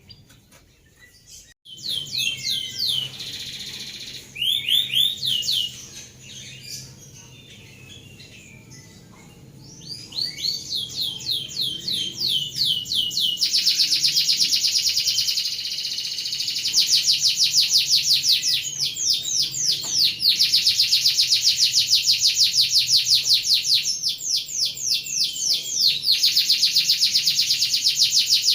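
Domestic canary singing a rolling song. It starts with short phrases of fast repeated high notes, then from about halfway runs into long unbroken rapid trills.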